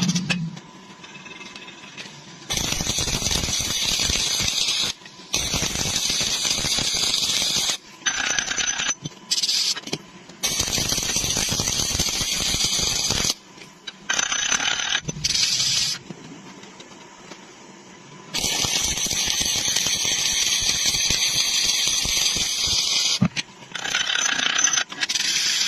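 Stick-welding (SMAW) arc crackling and sputtering on steel plate, heard as a string of short bursts that start and stop abruptly between quieter gaps.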